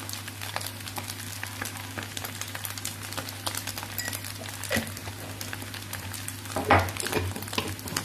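Egg fried rice sizzling and crackling in hot oil in a nonstick frying pan, with many small spits over a steady hiss and a low steady hum underneath. There is a brief louder noise about seven seconds in.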